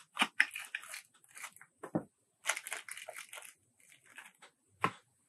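Plastic lure packaging crinkling and crackling in the hands, with irregular sharp clicks and crunches, a cluster about two and a half seconds in and one louder snap near the end.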